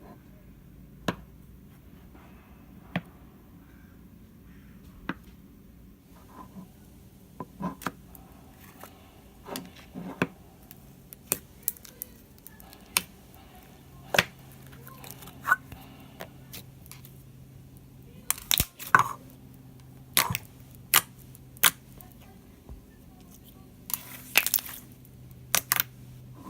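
Slime being squeezed and poked by hand, giving irregular sharp clicks and pops that come more often and louder in the second half, over a low steady hum.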